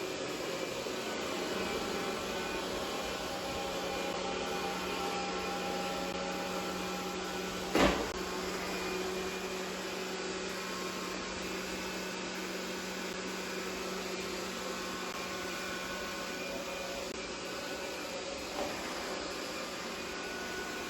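Roborock E5 robot vacuum running with a steady hum and a constant low tone, broken by one sharp knock about eight seconds in and a fainter one near the end.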